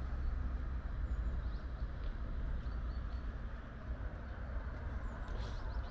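Outdoor city ambience: a steady low rumble with a few faint, short high chirps.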